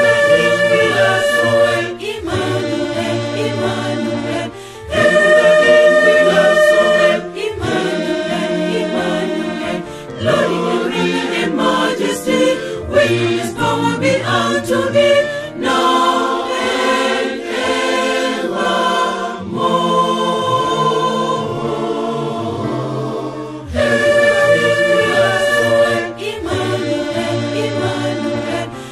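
Mixed choir of women's and men's voices singing a hymn in harmony, in phrases that swell louder and fall back.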